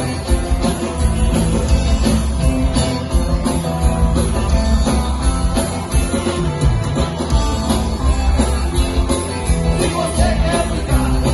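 Music playing: a song with a steady beat and strong bass, with singing.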